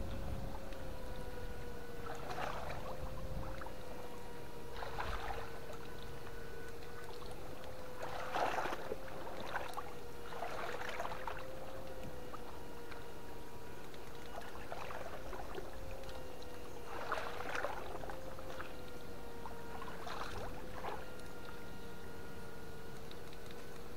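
Water splashing in short bursts every two to three seconds, over a steady, slightly wavering hum.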